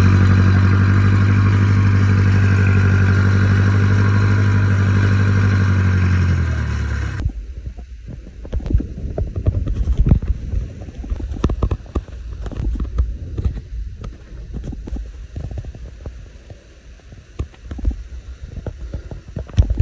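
Diesel standby generator running steadily, then shut down: its hum sags in pitch and the engine stops about seven seconds in. Scattered knocks and clicks of handling follow.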